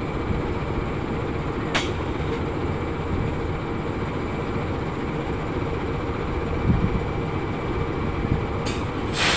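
Diesel-electric locomotive (KAI CC206) with its engine running steadily, a low rumble under a steady whine. A short burst of hiss comes about two seconds in, and a louder hiss starts right at the end.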